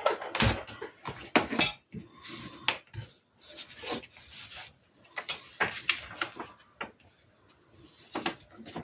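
Paper cards and craft supplies being handled on a table: irregular light clicks, taps and paper rustles, quieter for a moment near the end.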